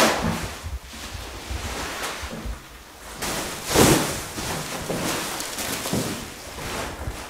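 Rustling and crinkling of a large sheet of white plastic wrapping being pulled off a framed painting, in surges that are loudest a little under four seconds in.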